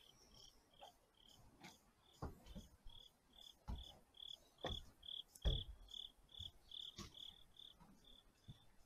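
An insect chirping steadily in short high pulses, about three a second. A few dull footsteps sound on the aluminium bleachers, the loudest about five and a half seconds in.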